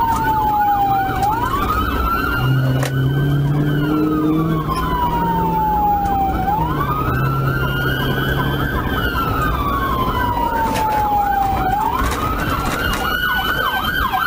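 Police sirens in a pursuit: one slow wail falling and rising about every five seconds, with a second siren's fast yelp going over it. Patrol car engine and road noise run underneath.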